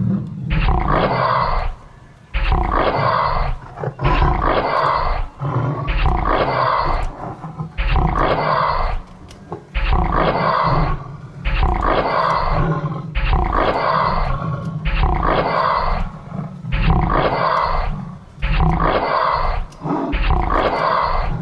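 Recorded animal roars from an animatronic wildlife display, about one loud call a second with short gaps between them, over a low rumble.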